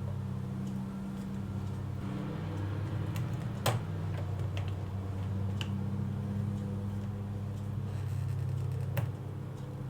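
Small metal tools clicking against a wristwatch movement during reassembly, with two sharper clicks about four seconds in and near the end and lighter ticks between, over a steady low hum.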